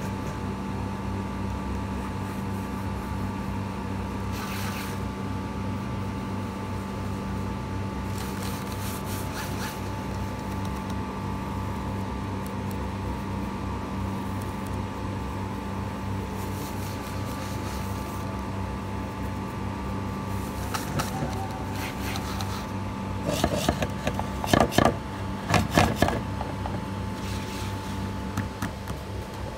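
A steady mechanical hum with a few fixed tones runs throughout. Short scraping and rubbing sounds of pencil and paper handling come now and then, with a louder cluster of scrapes and knocks a few seconds before the end.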